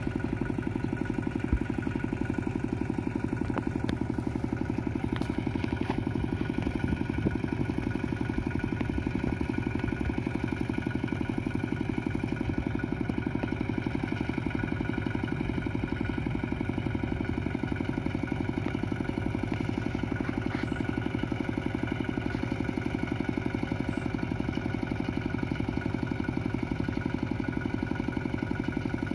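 Power tiller's single-cylinder diesel engine running steadily, with an even, fast chugging beat.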